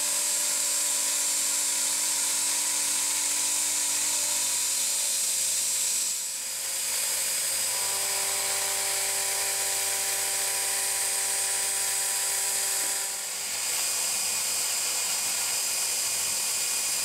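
Small CNC milling machine running a cut in 6061 aluminium soft jaws: a steady hiss from the mist coolant nozzles over the spindle and machine whine. The whine's pitch shifts a few times, and the sound dips briefly twice, about 6 and 13 seconds in.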